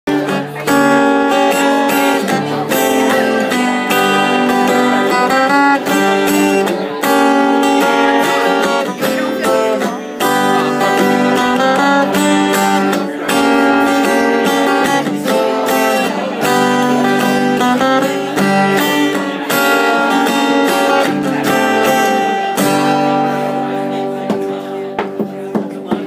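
Live acoustic guitars strumming a song, loud and rhythmic. The sound softens a little near the end.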